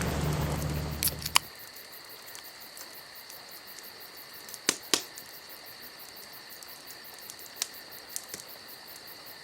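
Insects, likely crickets, chirping steadily in a high pitch, with a few sharp clicks scattered through. A loud rushing noise cuts off about a second and a half in.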